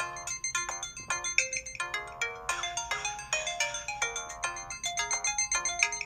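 LG-SH100 mobile phone ringtone: a synthesized melody of quick, short notes.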